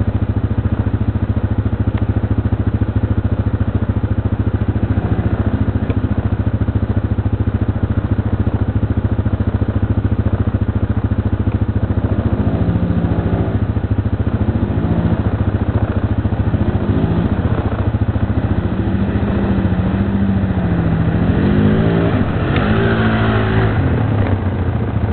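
ATV engine revving again and again as it comes through the mud, its pitch rising and falling with each throttle blip. It gets louder and brighter near the end as it passes close with its wheels spinning in the mud. Underneath runs a steady low engine hum.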